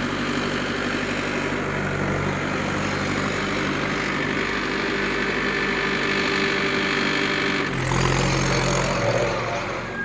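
Mahindra 575 DI XP Plus tractor's four-cylinder diesel engine running steadily at idle. About eight seconds in it gets louder and harsher for a moment, then eases back near the end.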